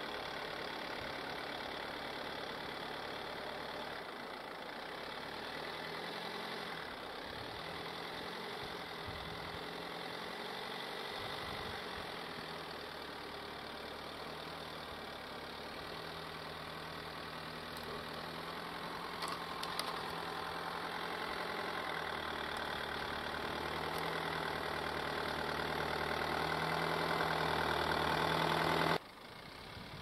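GAZ Sobol 4x4 van's engine running at low revs, about 1000–1200 rpm in low range, as it crawls through deep snow. It grows steadily louder as the van comes closer, then cuts off abruptly near the end.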